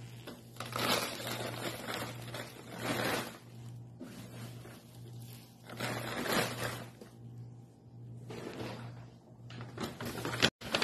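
Shredded paper rustling in several bursts, over a steady low hum.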